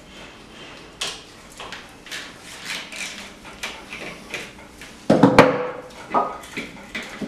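Hand tools clinking and knocking on the metal of a Jaguar E-type engine's bellhousing as bolts are worked loose: a run of irregular light knocks, with a louder metallic clank about five seconds in that rings briefly.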